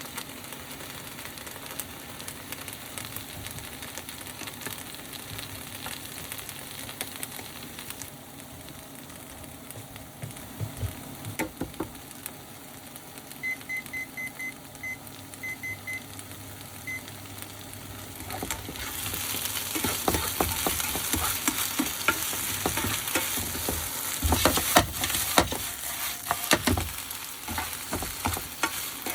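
Eggplant and chikuwa sizzling as they are stir-fried in a frying pan, with the scrape and knock of a spatula. A short run of small electronic beeps comes about halfway through. From about two-thirds in, the sizzle gets much louder, with frequent sharp clacks of the spatula against the pan.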